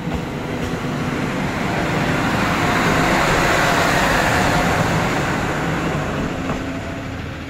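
A Tarumi Railway single-car diesel railcar passing close by, its engine running and its wheels rumbling on the rails. The sound grows to its loudest about halfway through, then fades as the car pulls away.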